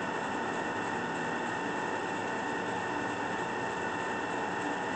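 Cazeneuve HB 575 20 x 50 inch geared-head engine lathe running under power: a steady machine hum with a few constant tones, holding the same pitch throughout.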